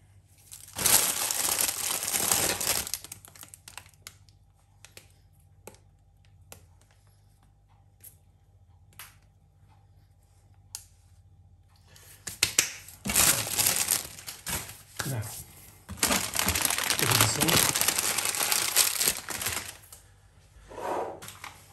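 Plastic sweet packet crinkling and tearing in three long bursts, with a few light clicks in the gaps between.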